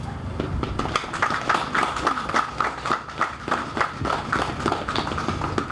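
Audience applauding: a dense, irregular patter of many hand claps that stops near the end.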